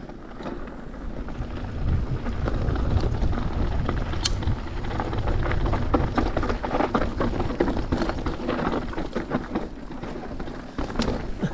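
Mountain bike riding down a loose dirt trail: wind rushing over the microphone with tyres crunching on dirt, getting louder over the first couple of seconds. From about five seconds in, the bike rattles and clatters over rough ground.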